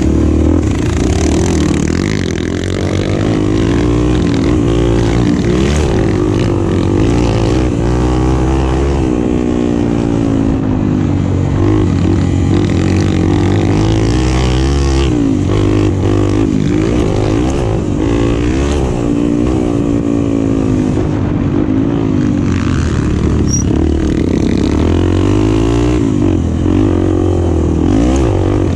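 Enduro motorcycle engine revving hard, its pitch rising and falling again and again as the throttle is worked and gears change over rough terrain.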